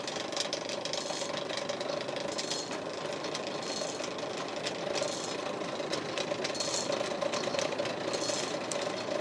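Hand-cranked forge blower running steadily with a constant whine, its whirr brightening a little more than once a second with the turns of the crank, as it blows air into the coal fire to bring a steel bar up to forging heat.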